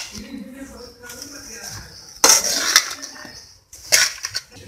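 A steel spoon scraping and clinking against a metal mixing bowl as puffed rice is tossed and stirred. There are three louder strokes: just after the start, about two seconds in, and near the end.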